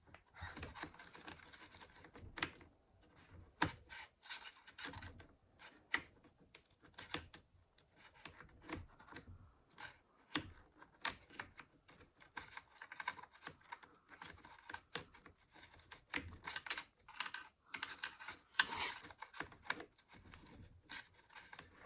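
A small wrench and hand tools working the steering rod linkage hardware on an RC truck's front end: irregular light metal clicks and ticks with some scratchy rubbing.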